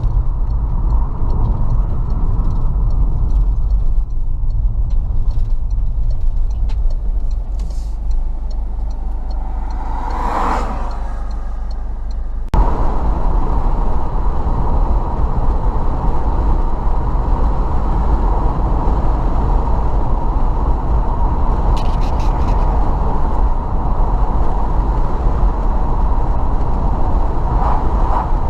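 Car engine and tyre rumble heard from inside the car while driving, steady and low, with another vehicle passing about ten seconds in. The rumble drops a little, then jumps back up suddenly a couple of seconds later.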